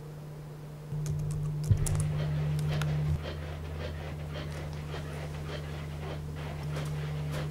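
A man panting heavily in a steady rhythm, starting about a second in, the sound of someone exercising hard.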